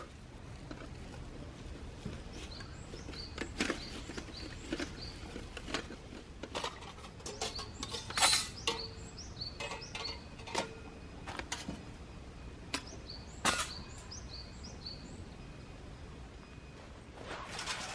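A bird calling in two runs of short, high, downward-slurred notes, over a steady outdoor background and scattered sharp clicks and knocks, the loudest about eight seconds in.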